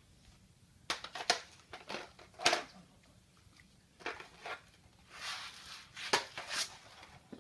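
Nerf Rough Cut 2x4 dart blaster being loaded by hand: a string of sharp plastic clicks and knocks, with a brief scuffing rustle near the middle, as darts are pushed into the barrels.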